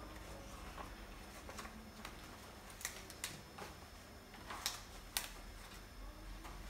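Banana leaves rustling and crackling as they are pressed and tucked into an aluminium steamer pot, with a few sharp clicks, the loudest twice near the five-second mark.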